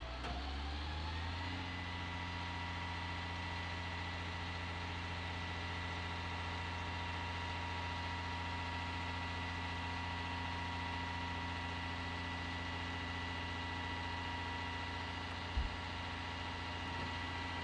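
M142 HIMARS launcher running: a low diesel engine hum under a steady high whine that rises in pitch over the first second or so, then holds, as the launcher's reload boom works. A single short knock about 15 seconds in.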